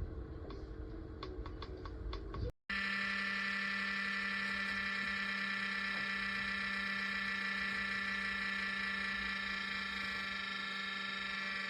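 A few light ticks over a low hum, then, after a brief cut about two and a half seconds in, a small electric motor running with a steady low hum and a high whine.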